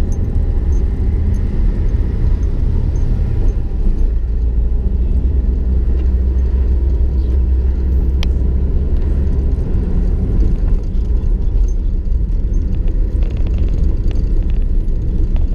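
Steady low rumble of a car driving, engine and road noise heard from inside the cabin. A single short click about eight seconds in.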